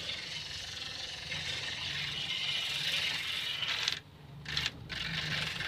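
Electric angle grinder running with its disc pressed against rusty sheet-metal louvers, a steady harsh scraping over the motor's hum as the rust is ground off. About four seconds in the scraping drops away, with a couple of brief touches, while the motor keeps running, then it comes back.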